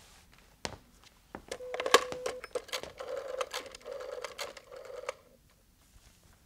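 Old rotary desk telephone being picked up and dialled: a few sharp clicks and a clatter as the handset is lifted, then the dial whirring back several times in a row, which stops suddenly about five seconds in.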